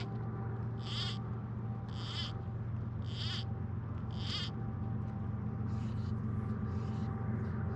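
An animal's short, high, buzzy call repeated about once a second: five clear calls, then fainter ones near the end.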